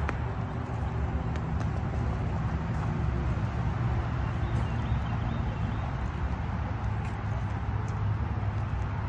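Steady low rumble of wind and handling noise on a phone's microphone as it is carried along a path, with a few faint clicks.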